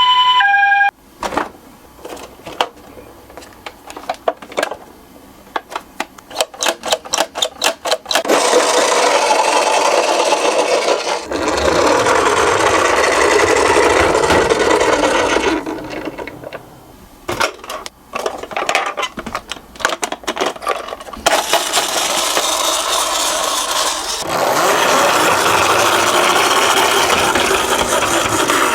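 Miniature toy cars rolling down a slope track. Long runs of steady rattling rolling noise are broken by scattered clicks and knocks. A two-tone ambulance siren cuts off in the first second.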